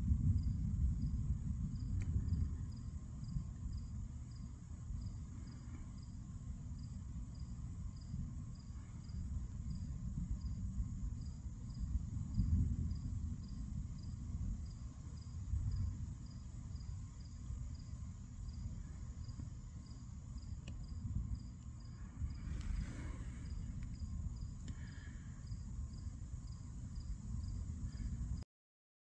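Crickets chirping in an even, steady rhythm over a constant high insect drone, with a low, uneven rumble underneath that swells and fades. The sound cuts off abruptly shortly before the end.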